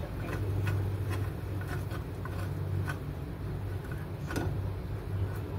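A steady low hum with light clicks and ticks scattered through it, and one sharper click about four and a half seconds in.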